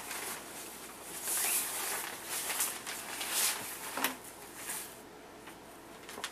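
Package wrapping being handled on a lap, rustling in several bursts, with a sharp click about four seconds in; the rustling dies down after about five seconds.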